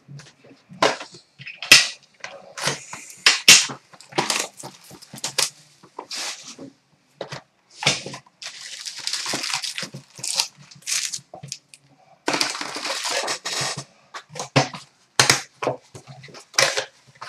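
A sealed hockey card box being unwrapped and opened and its foil card packs handled: irregular sharp crackling of plastic wrap and cardboard, with two longer stretches of tearing and crinkling, about eight seconds in and again about twelve seconds in.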